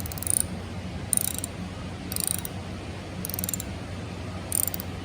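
Hand ratchet wrench being worked in short strokes on a transmission fastener: five quick bursts of clicking, roughly one a second.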